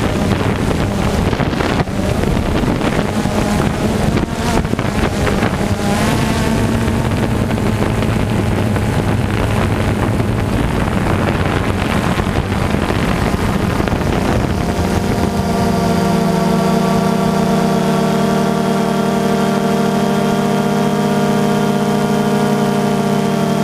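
Wind buffeting the microphone over a steady engine hum. About two-thirds of the way through, a stronger steady drone with several pitched overtones sets in and holds.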